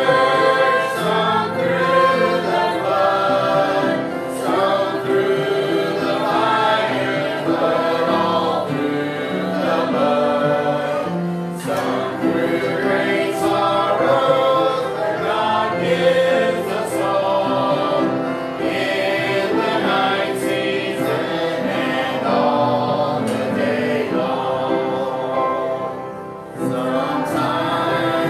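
Congregation singing a hymn together, led by a man's voice, with upright piano accompaniment.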